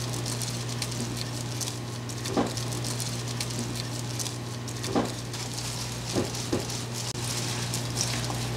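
Wet crackling and squishing as a seasoning sauce is poured over raw beef tripe and liver in a stainless steel bowl and worked in by a plastic-gloved hand, with a few soft knocks against the bowl. A steady low hum runs underneath.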